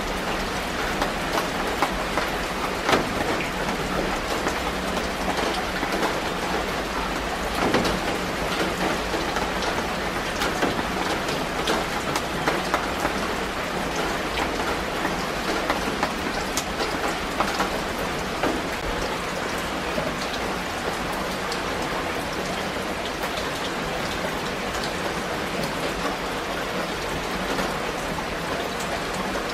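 Steady rain falling on the leaves of garden shrubs: a dense, even patter of drops striking the leaves, with a few sharper drop hits in the first half.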